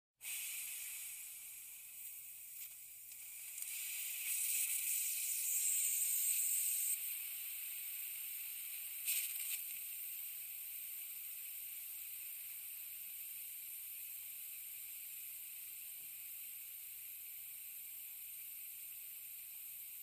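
Air hissing slowly out of a leaking air tank: a steady high hiss that swells louder a few seconds in, flares briefly near the halfway point, then settles to an even hiss.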